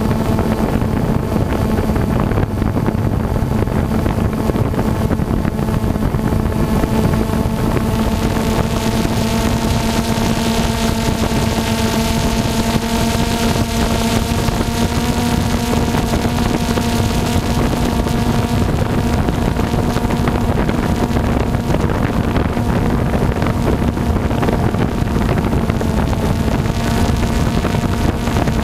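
Quadcopter drone's motors and propellers humming at a steady pitch, with wind noise on the microphone.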